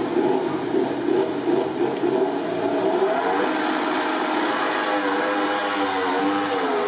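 Ducati Desmosedici MotoGP bike's V4 engine held at high revs on the line for a practice start, the pitch wavering. About five seconds in the revs drop as the bike launches, then climb as it pulls away.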